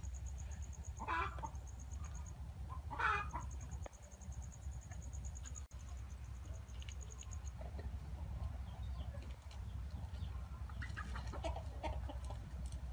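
Chickens clucking: two loud calls about one and three seconds in and a few softer ones near the end, over a high, fast-pulsing chirr and a low steady rumble.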